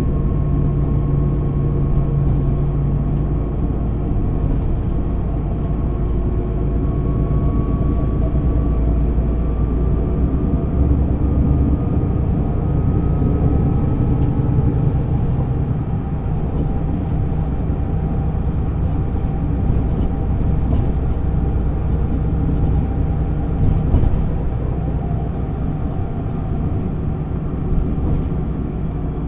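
MAN NÜ 280 Lion's City city bus running on the move, its diesel engine and ZF automatic gearbox giving a steady drone. A thin whine slowly rises in pitch through the first half, then fades.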